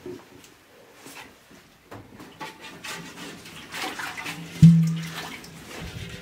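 Liquid being ladled from metal pots and poured into a wooden churn, splashing. About four and a half seconds in, a metal pot is knocked once and rings for about a second.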